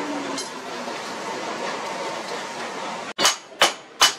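Coal forge fire burning under an air blast, a steady rushing noise. About three seconds in it cuts off, and a hand hammer starts striking red-hot leaf-spring steel on the anvil: three sharp ringing blows about 0.4 s apart.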